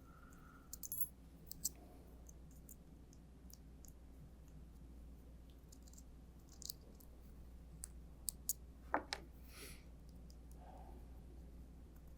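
Scattered light metallic clicks and ticks from screws being loosened on a hot foil printhead's latch bracket, with a few about a second in and a quick run of them around nine seconds in.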